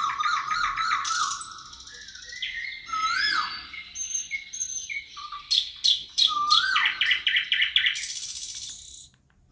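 Several forest birds singing at once: fast trills, quick chirps and repeated whistled notes that rise and fall. The chorus breaks off for a moment near the end.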